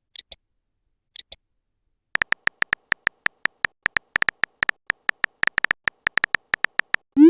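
Two soft ticks a second apart, then a long run of short electronic beeps, all at one pitch and unevenly spaced, like a text-typing sound effect, ending in a quick rising sweep.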